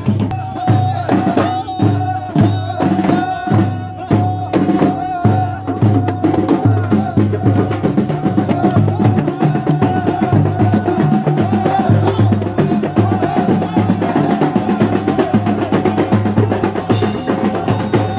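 A Moroccan traditional troupe plays hand-beaten drums in a steady beat, with a sustained high note held over the rhythm and voices joining in.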